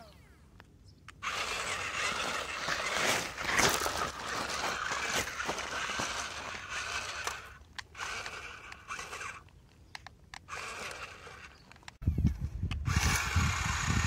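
Small electric drive motors of a toy remote-control wheel loader whirring, with its rubber tyres crunching over loose gravel, in several stretches broken by abrupt cuts. A low rumble joins in near the end.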